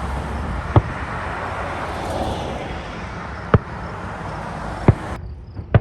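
Fireworks going off in the distance: four sharp bangs at uneven intervals over a steady rushing background.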